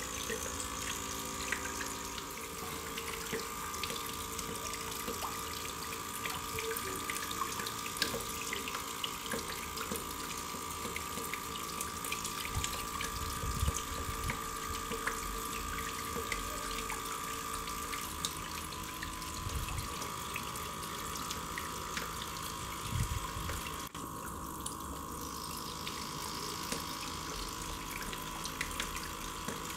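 Jet of water splashing steadily onto the spinning plastic-bladed rotor of a homemade fan-motor water turbine and spattering into a barrel of water, with a steady mechanical hum underneath and a few soft low bumps in the middle.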